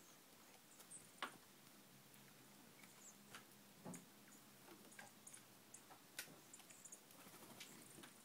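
Faint scattered ticks and clicks of small birds foraging on gravel under a feeder, with brief high chips now and then.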